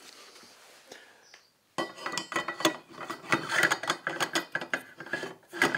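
Hex key turning a small bolt in the steel top plate of a camera-slider carriage: dense, irregular metal clicking and rattling that starts about two seconds in, with a louder knock near the end.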